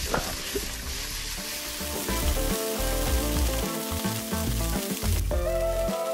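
Sliced wild mushrooms sizzling as they fry in a steel pan, tossed partway through; the sizzle stops about five seconds in. Background music plays underneath.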